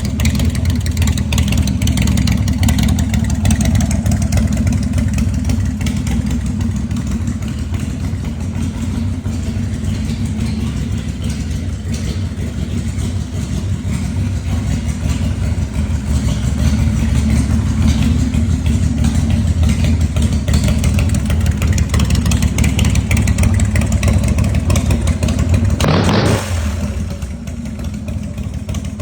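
Harley-Davidson Evo-style S&S 113 cubic inch (1850cc) air-cooled V-twin running steadily at low revs. Near the end there is a brief surge, after which it runs quieter.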